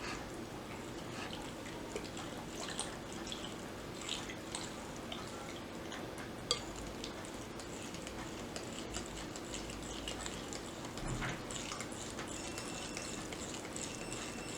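Light kitchen handling sounds: small clinks of utensils against a bowl and soft wet sounds of food being worked, over a steady low hum.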